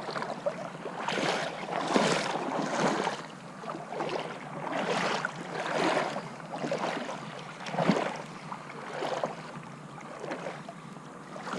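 Water sloshing in repeated surges, roughly one a second, over a low steady hiss.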